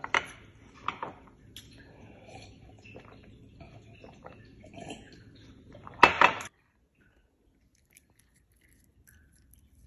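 Eating sounds close to the microphone: chewing, and small clicks of a plate and mug on a glass tabletop, with a loud clatter about six seconds in.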